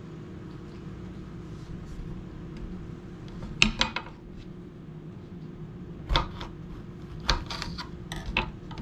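Kitchen knife cutting jalapeño peppers on a cutting board: a few sharp clicks and knocks a few seconds in, then a cluster of them in the last third. A steady low hum runs underneath.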